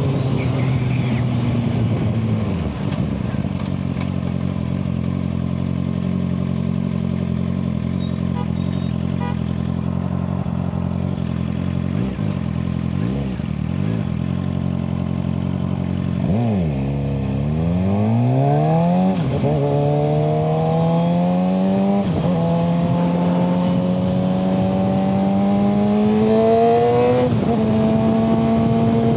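Suzuki GSX-R600's inline-four engine slowing to idle, with a couple of short throttle blips, then pulling away hard and revving up through the gears, its pitch dropping at each of about four upshifts.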